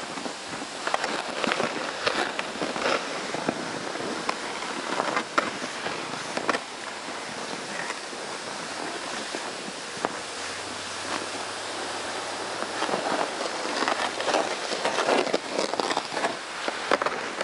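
Plastic sled sliding and scraping over snow as it is towed, a steady hiss broken by irregular crunches, likely including footsteps of the person pulling it.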